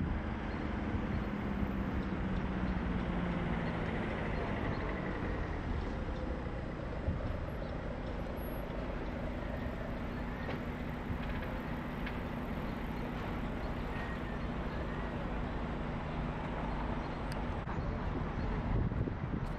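City street traffic: a steady hum of vehicle engines and tyre noise.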